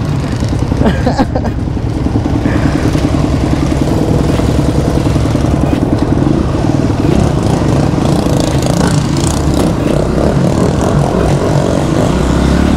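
Motocross bike engine running steadily, freshly started, heard right beside it.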